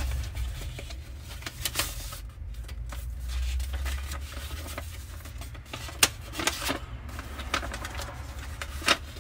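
A folded sheet of letter paper being handled and unfolded, rustling with a series of sharp crackles, the loudest about six seconds in and again near the end, over a steady low hum.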